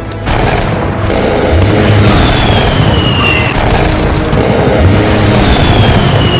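A-10 Warthog jets passing over: a loud jet rush with a whine that falls in pitch twice, over a dense low rumble and film score.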